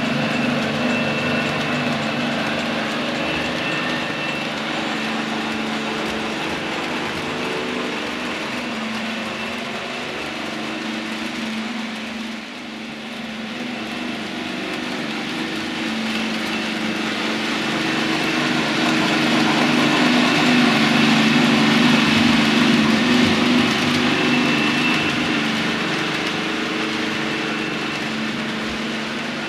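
DCC sound-fitted model locomotives running, their onboard speakers giving a steady engine sound with a regular pulse. It dips briefly about twelve seconds in and is loudest around twenty seconds.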